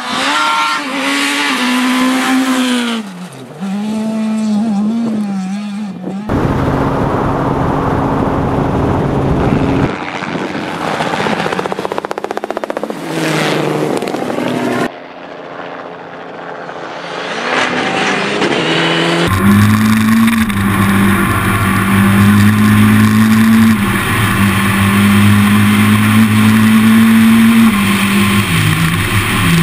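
Rally cars on a gravel stage at full throttle, engines revving up and down through the gears in a string of short passes that cut off abruptly one after another. Over the last ten seconds one engine holds a fairly steady high rev.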